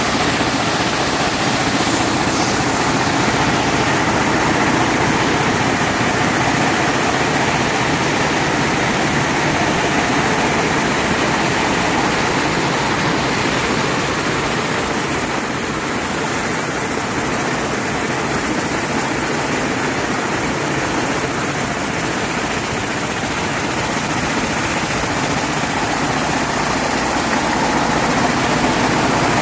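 Picanol weaving loom running, with more looms running in the weaving shed around it: loud, steady machine noise, a little quieter in the middle of the stretch.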